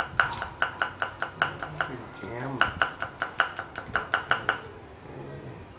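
A cleaver chopping garlic cloves on a thick round wooden chopping board: quick, regular knocks about five a second, with a short break about two seconds in, stopping about four and a half seconds in.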